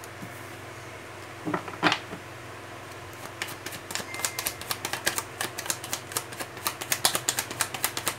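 A deck of tarot cards shuffled by hand: a quick clatter of cards slapping together, about five or six a second, starting about three seconds in. Before it, two soft knocks near two seconds in as a card is laid down on the table.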